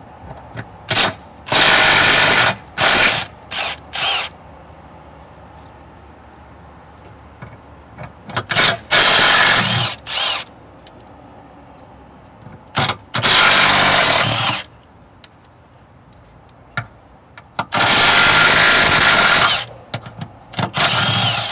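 Cordless impact wrench with a 15 mm socket hammering loose the four bolts that hold the transmission mount to the cross member. The first bolt takes several short bursts, and each of the other three one run of a second or two, with pauses between.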